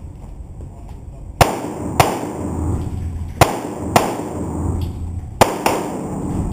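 Gen4 Glock 21 .45 ACP pistol firing at an indoor range: shots in quick pairs about half a second apart, a pair roughly every two seconds, each shot trailing off in room echo.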